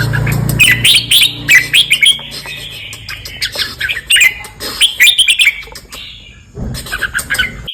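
Red-whiskered bulbul singing, phrase after phrase of short, bubbly whistled notes. A brief low rumble comes in near the end.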